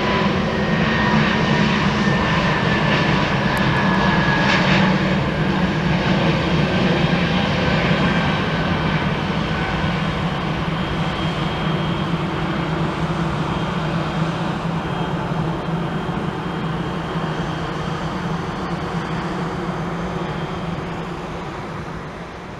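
Airbus A321neo's two Pratt & Whitney PW1130G geared turbofans at takeoff thrust through the takeoff roll and climb-out: a steady, loud jet noise with a whine that falls in pitch over the first few seconds, the whole sound slowly fading as the jet climbs away.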